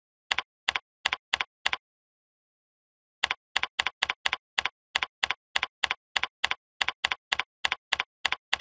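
Computer keyboard keystrokes clicking. There are five quick clicks, a short pause, then a steady run of about three keystrokes a second.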